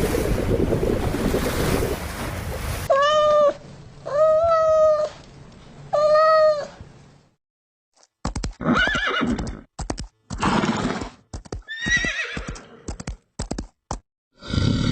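Wind and surf noise, then after a cut three short, pitched animal calls about a second apart, followed by a choppy run of shorter calls and snorting bursts with brief silences between them.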